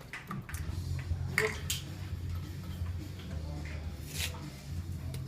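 A bottle of tubeless tire sealant being shaken and handled: liquid sloshing with a few sharp plastic clicks, over a steady low hum.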